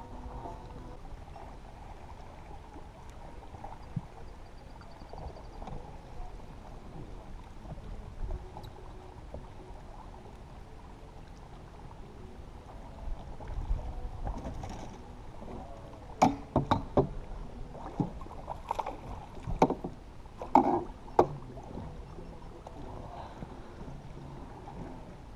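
Low, steady noise of water and wind around a small fishing boat on the water, with a run of sharp knocks and clatter on the boat a little past the middle.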